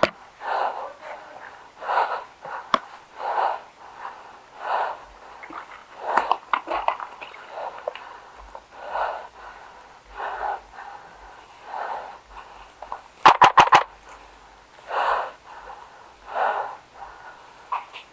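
Heavy breathing close to the microphone, one breath about every second. About 13 seconds in, a quick burst of about five sharp cracks from an airsoft gun firing.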